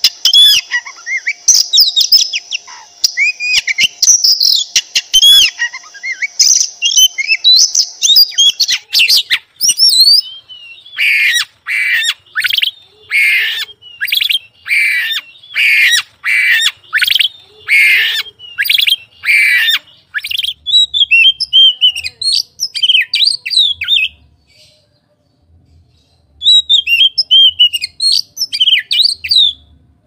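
Oriental magpie-robin singing loudly: a fast stream of varied whistled phrases, then from about ten seconds in a run of harsh notes about one a second, then whistled phrases again, with a short pause before a last burst of song near the end.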